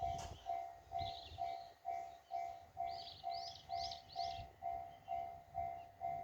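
Japanese railway level-crossing warning bell ringing steadily at about two strikes a second, signalling an approaching train. A bird chirps about a second in and again in a quick run of four notes near the middle.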